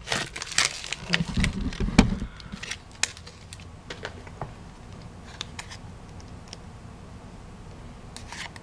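Pokémon trading cards handled in the hands: a few short clicks and soft scrapes of card against card in the first few seconds, then a steady low room hum with only a couple of faint ticks.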